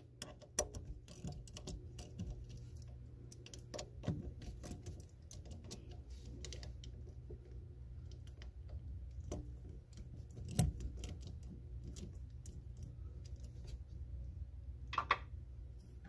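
Hand ratchet with an 8 mm socket clicking in irregular runs as it backs out the bolts on a raw water pump cover, with one sharper knock about two thirds of the way through. A low steady hum lies underneath.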